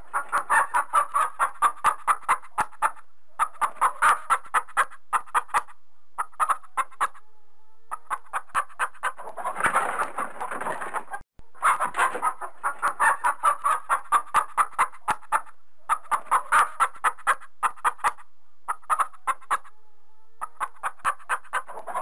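Chicken clucking in rapid runs of short clucks, about five a second. Each run lasts two to three seconds, with brief pauses between them.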